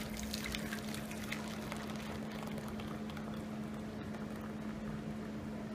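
Egg-and-milk flan custard poured in a steady stream from a stainless steel pot into a metal loaf pan, a soft continuous splashing of liquid.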